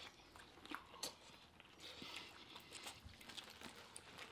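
Faint biting and chewing of corn on the cob: a scatter of soft, irregular clicks.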